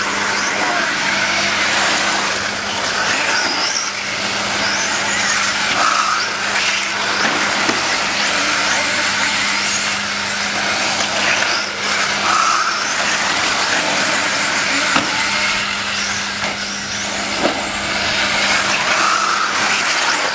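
Several 1/8-scale radio-controlled late model race cars lapping an oval together, their small engines whining past the microphone in waves that rise and fall, with a steady low hum underneath.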